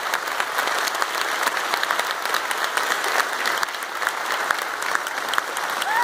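A large audience applauding: many hands clapping steadily.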